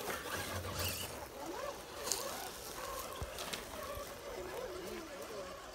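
Faint, indistinct voices of people talking, with a couple of soft knocks.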